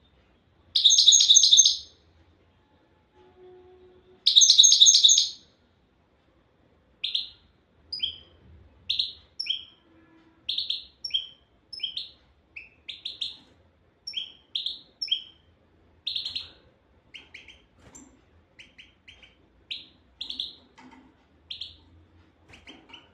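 European goldfinch singing: two loud, dense twittering phrases in the first five seconds, then a run of short separate chirps and twitters, a few a second.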